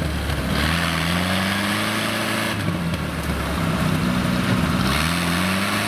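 UAZ Bukhanka van engine revving in repeated surges under load in deep mud, pitch climbing and dropping three times. A rushing noise rises and falls with the revs.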